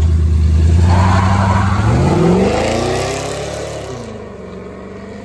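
A vehicle's engine, held loud and steady, then launching about two seconds in: its pitch climbs as it accelerates hard and fades away.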